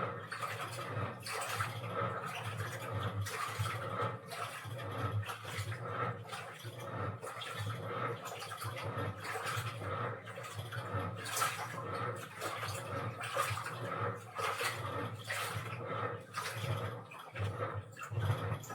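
Washing machine running its wash cycle: water sloshing and swishing irregularly in the drum over a steady low hum.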